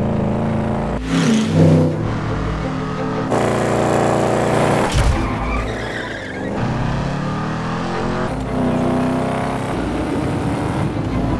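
Car chase sound effects: car engines revving and gliding in pitch, with tyres skidding and squealing. The sound changes abruptly several times.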